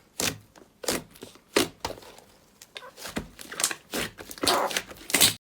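Slime being squeezed and pressed by hand, giving a series of crackling, crunchy squishes about every half second to a second; the sound cuts off suddenly near the end.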